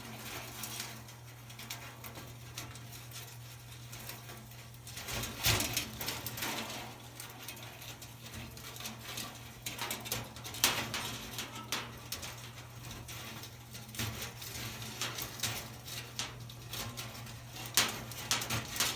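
Scattered light clicks, scrapes and rattles of a dryer heating element's wire coil being worked loose from its porcelain insulators, over a steady low hum.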